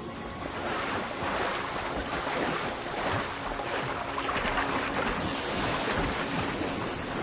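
Crocodiles and gazelles thrashing in a river: irregular, heavy splashing and churning water that grows louder about a second in.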